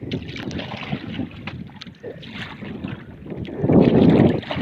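Water lapping and splashing against a small outrigger boat, with wind buffeting the microphone; it is loudest in a gust about three and a half seconds in.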